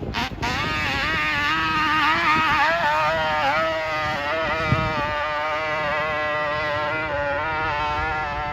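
Quad (ATV) engine revving, its pitch rising and falling unevenly for the first few seconds, then running at a steady pitch from about four seconds in.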